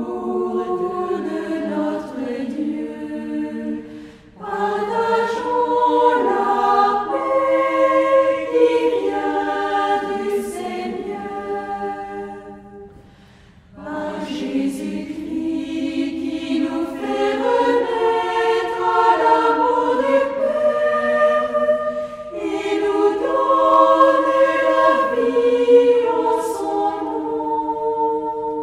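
Choir singing sustained phrases in several voices, with short breaths between phrases about four seconds in, near the middle and about three-quarters through.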